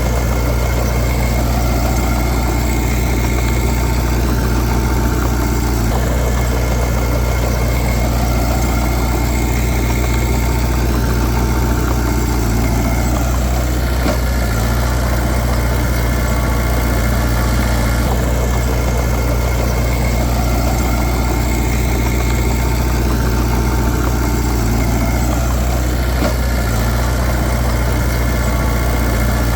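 Heavy diesel engine of earthmoving machinery running steadily, with faint rising and falling sweeps that recur about every six seconds.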